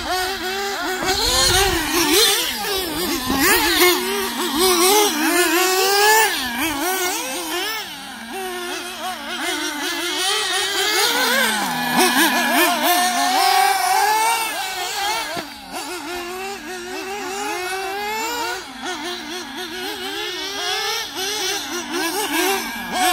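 Nitro engines of 1/8-scale RC buggies (Argus A5 and Spower S7) revving up and down as the cars race, two engine notes overlapping, their pitch rising and falling constantly with the throttle.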